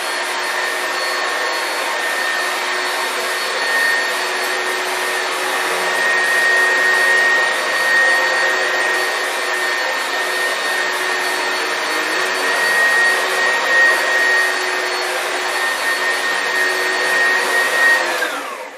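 Oreck XL2 upright vacuum cleaner running at full power while vacuuming carpet: a steady motor whine over the rush of air. Near the end it is switched off and the whine winds down.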